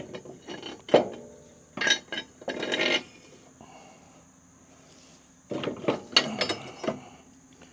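Steel parts clinking and clanking as they are handled and test-fitted by hand. There is a sharp knock about a second in, a bunch of clinks around two to three seconds in and another near the end.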